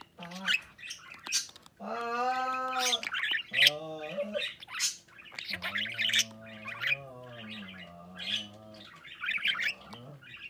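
Budgerigar chattering, with sharp clicks and two long drawn-out warbling calls.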